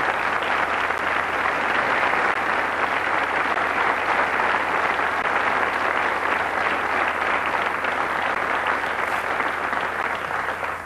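Studio audience applauding steadily, the clapping dying down near the end.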